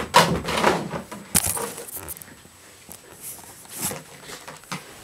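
A dog leaping for a plastic frisbee and scrambling on the carpet: bursts of scuffling and clatter in the first second and a half, then a few short, softer knocks and rustles.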